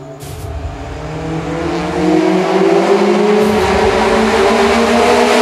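Honda Civic Si's four-cylinder K20 engine, with a stainless steel header and exhaust and a cold-air intake, accelerating in one gear as the car approaches. The engine note climbs steadily in pitch and grows louder over the first two seconds, then stays loud.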